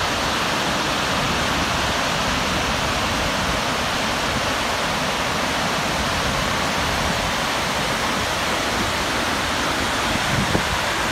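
Floodwater pouring over a dam's curved concrete spillway into churning whitewater below: a steady rush of water.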